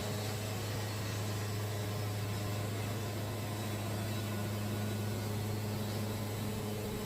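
Band sawmill running steadily as it saws a pine log, with a constant low hum and even noise throughout.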